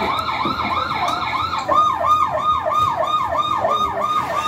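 Toy ride-on police car's electronic siren sounding from its built-in speaker: a fast sweep rising and falling about three times a second, changing about one and a half seconds in to a sharper, more regular falling sweep.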